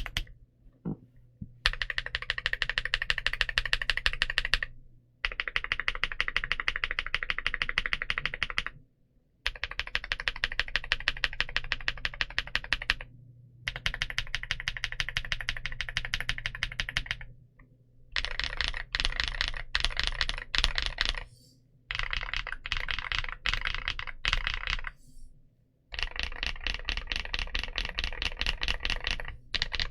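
Typing on a mechanical keyboard fitted with clicky frankenswitches: Huano Blue click-jacket stems in Gateron Blue bottom and NK Silk top housings, with 63.5 g springs. Fast runs of sharp clicking keystrokes come in bursts of a few seconds, broken by short pauses.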